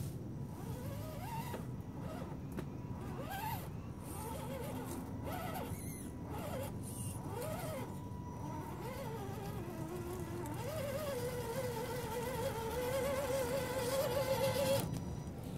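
Electric motor and gears of a radio-controlled scale crawler truck whining in short bursts that rise and fall in pitch with the throttle. From about ten seconds in the whine becomes longer and wavering, growing louder as the truck comes close, and it drops away just before the end.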